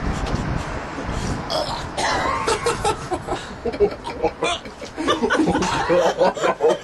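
A man gagging and making throat noises while chewing a mouthful of food, with laughter around him from about two seconds in.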